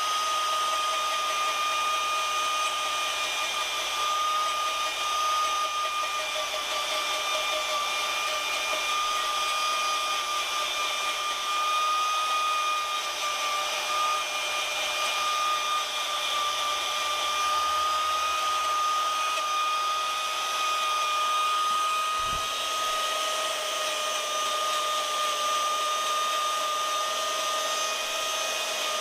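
High-speed electric power carving tool running steadily with a high whine.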